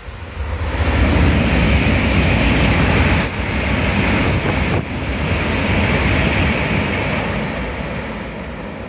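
Shinkansen bullet train passing at high speed at close range and running into a tunnel: a loud rush of air and rolling noise that swells about a second in, holds for several seconds, then fades away toward the end.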